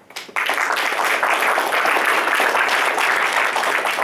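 Audience applauding, many hands clapping together; it starts suddenly a moment in and keeps up steadily.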